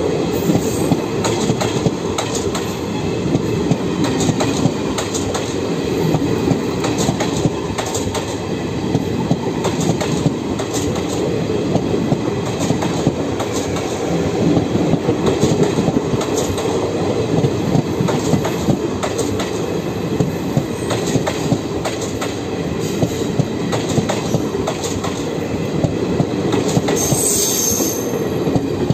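Garib Rath express coaches passing close by at speed: a steady, loud rumble of wheels on rail with a repeated clatter over the rail joints, and a brief high squeal near the end as the last vehicles go by.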